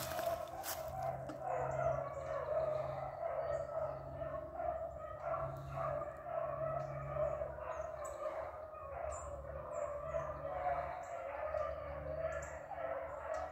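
A pack of hunting hounds baying while running a track, their voices overlapping in a steady, wavering chorus, with a few short high chirps over it.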